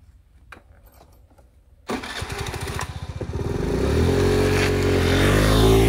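Honda Vision NSC50 scooter's small four-stroke single-cylinder engine starting suddenly about two seconds in, then revving with a rising note as the scooter pulls away through its CVT on a newly fitted drive belt.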